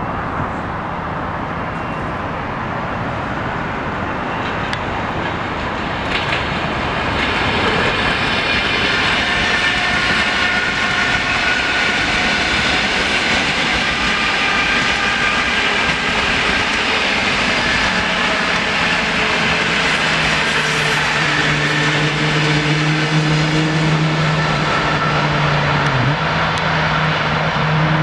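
ChME3 diesel shunting locomotive running light, its six-cylinder ČKD diesel engine droning under a steady hiss and rail noise, growing louder as it approaches. From about eighteen seconds in, the engine's low hum comes out strongly and rises slightly in pitch near the end.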